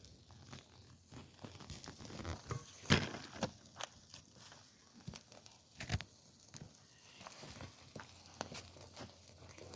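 Wood campfire crackling, with irregular sharp pops, the loudest about three seconds in and again near six seconds.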